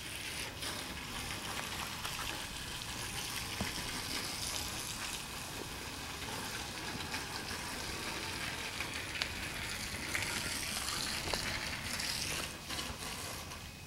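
Wind buffeting the microphone over a steady rustling hiss, with a few faint clicks.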